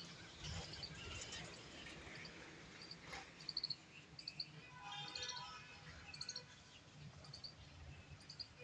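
Small birds chirping, in short high notes repeated again and again, with a louder stretch of calls around the middle.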